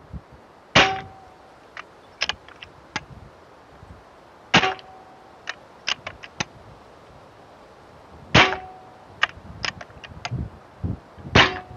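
Benjamin Bulldog .25 PCP bullpup air rifle fired four times without a moderator, a shot every three to four seconds. Each shot is a sharp crack followed by a brief metallic ping, the ringing that the shooter calls the loudest part of it and wants a depinger for. Smaller clicks sound between the shots.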